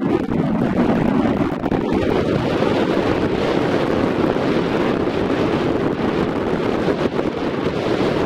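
Wind buffeting the camera's microphone: a loud, unbroken rumbling rush that flickers in strength.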